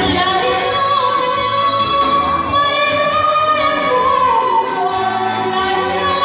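Music: a singer holding long notes with a wavering vibrato over instrumental accompaniment.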